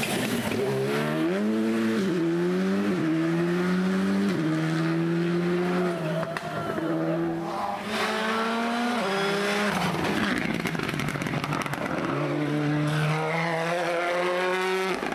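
Rally car engine under hard acceleration, its pitch climbing and then dropping back at several quick gear changes, between stretches of a steadier note.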